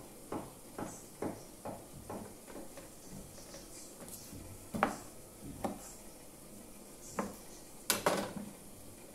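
Kitchen knife cutting thick rounds of linguiça sausage on a plastic cutting board. The blade knocks on the board about twice a second, then comes in slower, sparser knocks, the loudest about eight seconds in.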